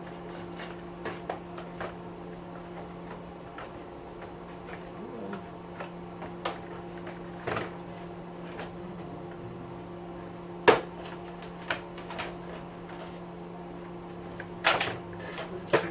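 Scattered clicks and knocks of the weed trimmer's plastic housing being handled and pried apart, with one sharp snap about eleven seconds in and a burst of knocks near the end. A steady low hum runs underneath.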